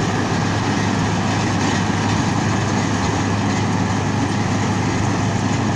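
Rice combine harvester running steadily, a dense, unchanging machine drone with a steady low hum.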